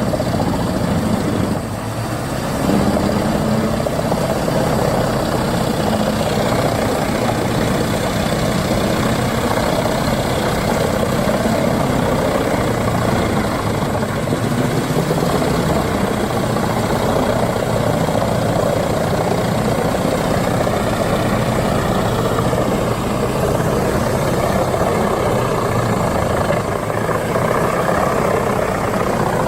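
Large drum wood chipper running steadily under load, with a short dip in level about two seconds in.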